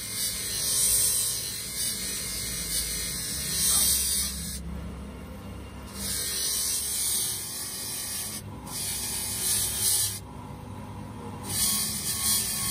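Bench buffing motor running with a steady hum while a steel hydraulic-jack tube is pressed against its spinning polishing wheel, giving a hissing rub. The rub breaks off three times, for about a second each, as the tube is lifted off the wheel.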